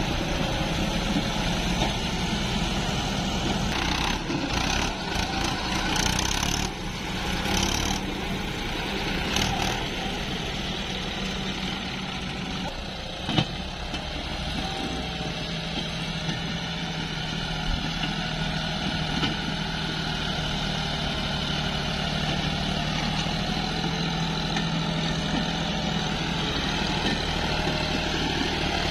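Diesel engines running steadily: a John Deere tractor hauling a soil-loaded trolley, with a Cat 320D excavator working nearby. The tractor's engine grows louder in the second half as it drives closer, and there is one sharp click a little past halfway.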